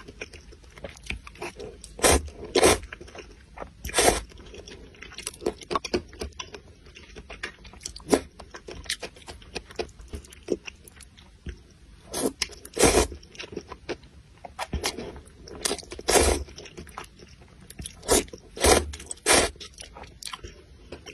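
Close-miked eating of rice noodles in broth: noodles slurped and chewed, in a run of short, irregular wet mouth sounds, with louder slurps every few seconds.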